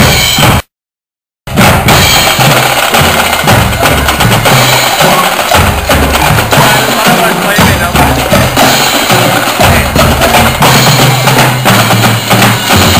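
Drum and lyre corps playing loud marching snare and bass drums in a steady rhythm. The recording cuts out completely for about a second near the start, then the drumming carries on.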